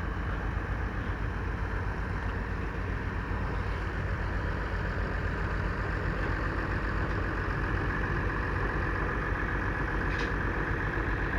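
Antique tractor engine running steadily at an even speed, with no saw cut heard.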